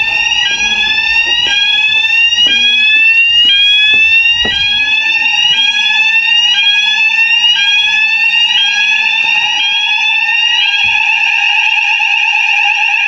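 Fire alarm sounders going off during a routine test. They give a rising sweep about once a second over a steady lower tone, and about eleven seconds in the sweeping gives way to a continuous tone.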